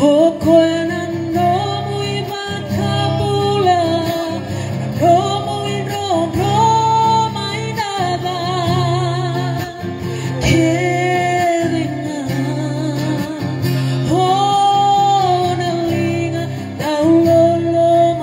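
A woman singing a gospel song through a microphone with vibrato on the held notes, with amplified acoustic guitar beneath.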